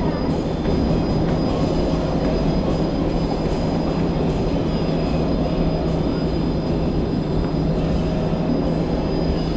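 A steady low motor hum under a constant rush of wind and water on a boat offshore.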